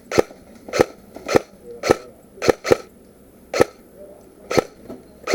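Footsteps crunching on gritty ground or debris, about two steps a second, with one quick double step near the middle.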